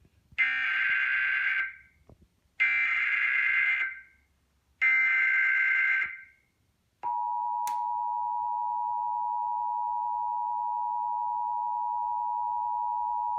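Emergency Alert System SAME header: three short bursts of screeching data tones, each about a second and a quarter long with about a second between them. About 7 seconds in, the steady two-tone EAS attention signal starts and holds, announcing a National Weather Service coastal flood warning.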